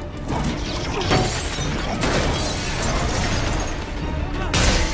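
Film score music mixed with the sound effects of a bridge deck breaking apart: concrete and steel cracking and crashing, with a loud crash about four and a half seconds in.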